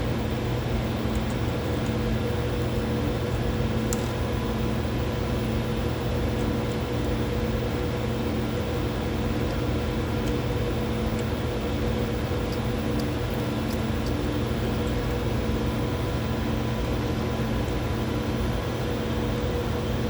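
Steady hum and air noise of running laboratory instruments and ventilation, with a few steady low tones, and a faint click about four seconds in.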